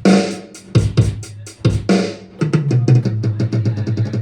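Ddrum DDA50 electronic drum kit sounds: a beat with strong hits under a second apart, then about halfway through a fast run of strokes stepping down in pitch, like a tom fill.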